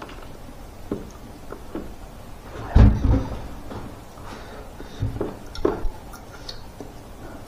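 Close-up eating sounds of a person eating with the fingers: scattered wet mouth clicks while chewing, and fingers gathering rice and food on a plastic plate. A dull thump about three seconds in is the loudest sound, with smaller knocks near five and six seconds.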